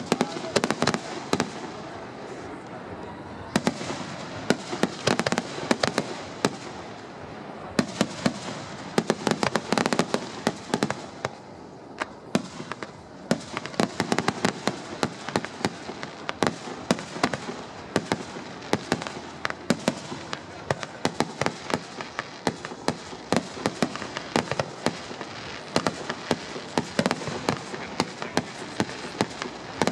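Aerial fireworks display: a continuous run of sharp bangs and crackles from bursting shells, several a second, with louder reports standing out irregularly.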